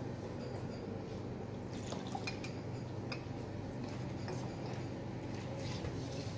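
Light clicks and taps of laboratory glassware being handled on a bench: a graduated cylinder and a glass beaker set down and picked up. These come several times, mostly in the middle and latter part, over a steady low hum.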